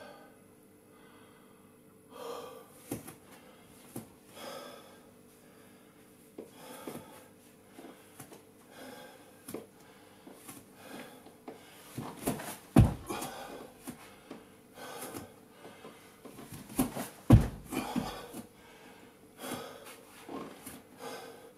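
A man breathing hard during exercise, about a breath a second. A few heavy thumps come in the second half, the loudest sounds here.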